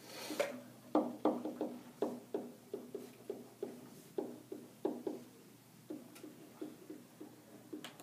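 Marker writing on a whiteboard: a brisk run of short tapping strokes, about two or three a second, each with a brief low ring, after a short scratchy hiss at the start.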